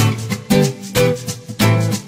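Background music with guitar, notes and chords struck in a steady rhythm about twice a second.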